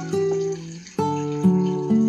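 Acoustic guitar playing an instrumental melody: a plucked note that fades away, then a new chord struck about a second in and another note soon after.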